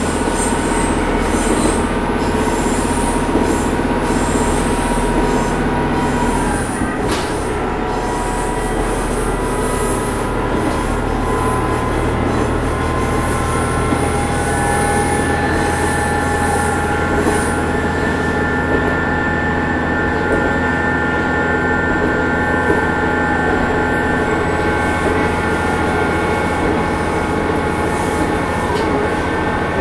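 Matsuura Railway MR-600 diesel railcar running, heard on board: a steady diesel engine drone under the rumble of wheels on rail, with thin high-pitched wheel squeal tones. About seven seconds in, the engine note shifts, then runs steady again.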